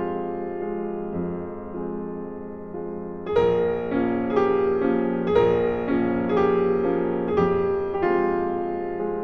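Slow piano music: struck notes and chords that ring and fade, growing louder about three seconds in.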